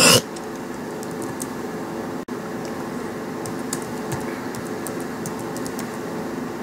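Keyboard keys clicking in a quick run of keystrokes from about three and a half seconds in, over a steady mechanical hum. A short, loud burst of noise right at the start.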